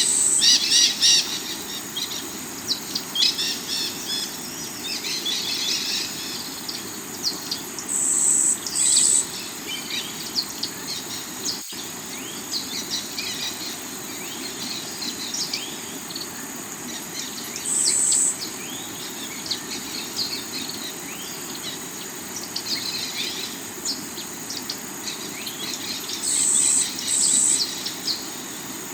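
Many small birds chirping and calling over the steady rush of water from a rocky river. Underneath runs a steady high hum, with a few short, louder high buzzes, some of them in pairs.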